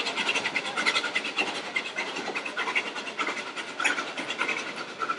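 Geared steam locomotive working upgrade, its exhaust chuffing in a fast, even beat over the rumble of the train.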